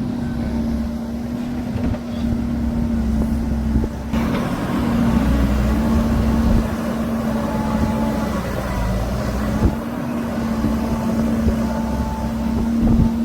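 Diesel dump-truck engine running with a steady drone. About four seconds in, the sound gets louder and fuller as truck traffic moves past.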